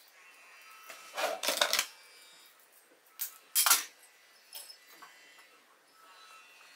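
Dried herb sprigs crackling and rustling as a tied bundle is handled and its brittle stems go into a glass jar, in a few short bursts: the longest about a second in, a sharper pair just after three seconds, and fainter ones after that.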